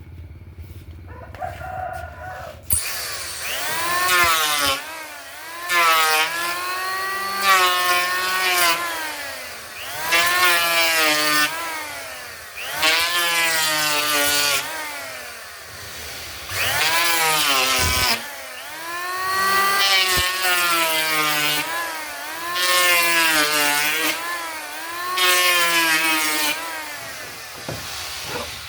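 A handheld power tool working wood in about ten repeated bouts, a few seconds each. In each bout the motor's pitch rises and then sags, over a hissy cutting or grinding noise.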